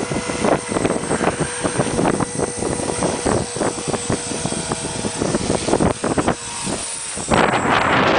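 Align T-Rex 400 electric RC helicopter running, its motor and rotor giving a steady whine, with wind buffeting the microphone and a loud gust of wind hiss near the end.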